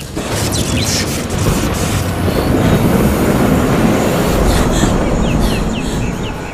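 Loud rumbling roar, strongest in the middle and easing a little near the end, with a few short squeaky chirps faintly over it.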